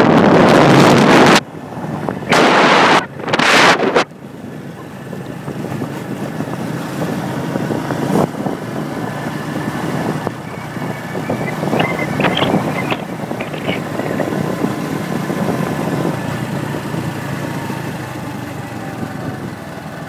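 Wind buffeting the microphone of a moving vehicle: loud at first, then in two short gusts in the first four seconds. After that a vehicle engine and road noise run steadily and more quietly.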